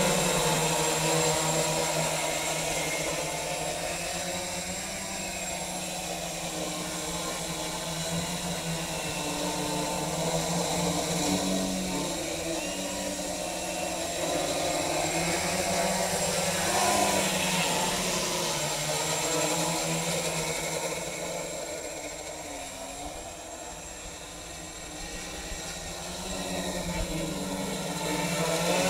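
Large home-built quadcopter's four brushless motors spinning 14-inch carbon-fibre propellers: a steady buzzing whir whose pitch wavers with the throttle. It fades and swells as the craft flies away and comes back, softest a little past the middle.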